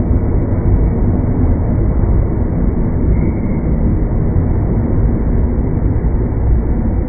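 Slowed-down sound of a JR 223/225 series electric train at a level crossing: a deep, steady rumble.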